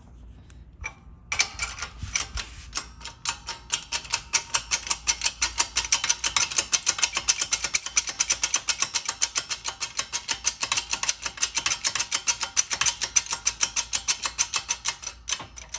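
Shop press pumping, a rapid, even clicking several times a second, as the ram drives a new bushing into a Dodge 48RE sun gear. The clicking starts about a second in and stops just before the end.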